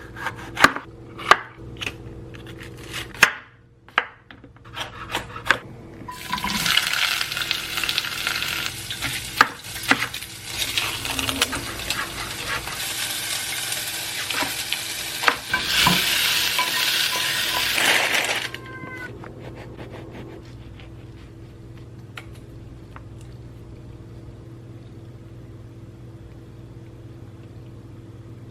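Kitchen food-preparation sounds: sharp clinks and knocks of utensils, then a loud hissing, crackling noise for about twelve seconds that stops suddenly, leaving a steady low hum.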